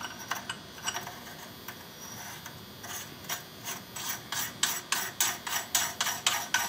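AR-15 handguard being turned by hand on its threads at the upper receiver: metal threads scraping and clicking, scattered at first, then a quick run of about four clicks a second over the second half.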